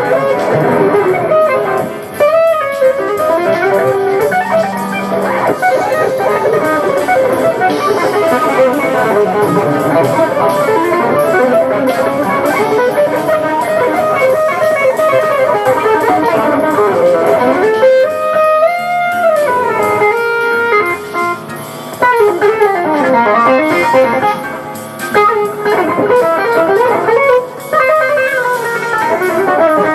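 Guitar playing jazz fusion, busy melodic lines with quickly moving notes and a fast climbing run partway through.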